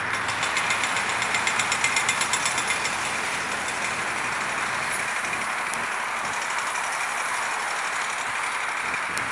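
Steady, loud rushing noise of engines, with a fast run of high ticks, about six a second, during the first three seconds.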